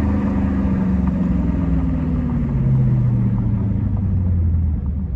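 Dodge Charger's 392 (6.4-litre) HEMI V8, fitted with a Mopar cold air intake, running under way from inside the car; its note slides down in pitch over the first couple of seconds, then holds lower and a little louder.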